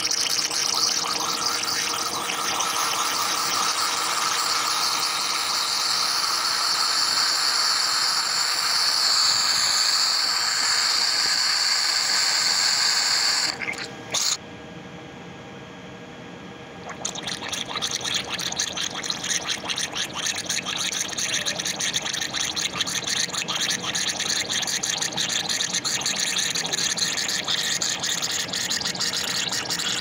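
Air hissing out of an open vent valve on a hot water system's pump pipework, the sign of a system heavily air-locked. About halfway through the hiss stops apart from a short spurt. A few seconds later a rapid sputtering starts as air and water spit out of the vent together.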